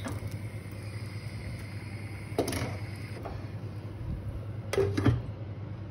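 Steady low hum with two short clatters of cookware, about two and a half and five seconds in.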